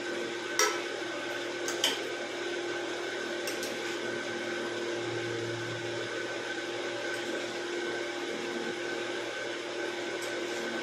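A few light clinks and scrapes of a metal spoon against a metal cooking pan and plate as curry is served, over a steady hum.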